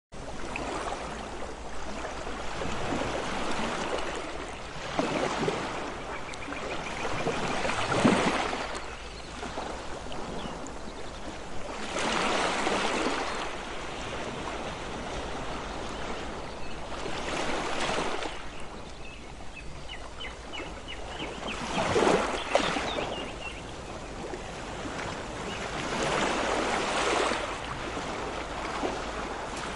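Ocean waves breaking and washing ashore, a surge of surf swelling about every four to five seconds over a steady hiss of water.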